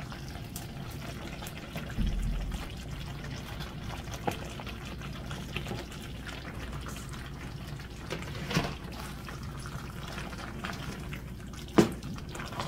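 Soft cooked lentils scooped with a wooden spoon from a plastic tub into a pot of simmering tomato sauce, making wet plops over a steady low bubbling. A few knocks of the spoon against the tub and pot, the loudest near the end.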